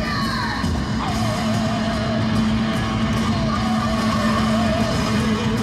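Rock music with guitar: a wavering melody line over a steady held low note.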